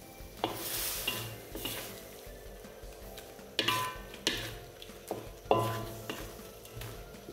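A utensil stirring jackfruit in sambal in a frying pan over a light sizzle, scraping and knocking against the pan with a few sharp, ringing clanks around the middle.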